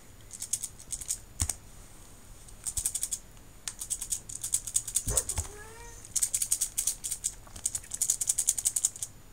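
Soroban (abacus) beads rattling inside a zippered cloth case in several quick runs of clicks. One short cat meow about five seconds in.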